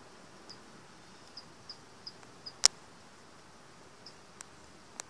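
A cricket chirping in short, high, irregular chirps. About two and a half seconds in, a single sharp click stands out as the loudest sound.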